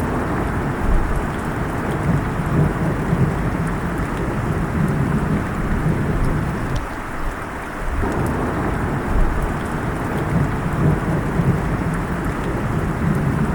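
Steady rain with thunder rumbling low underneath throughout. The rumble eases off briefly about seven seconds in, then swells again.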